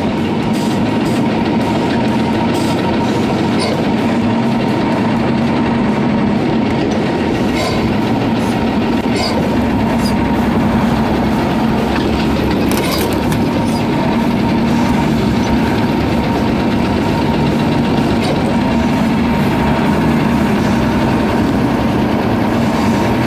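Mercedes-Benz Unimog 1300 L's diesel engine running steadily, with a few light clicks over the drone.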